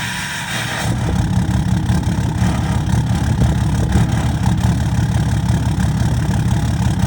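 Cummins 6.7-litre inline-six turbodiesel in a Ram 2500 idling on a cold morning, a steady low rumbling pulse. It grows suddenly louder about a second in.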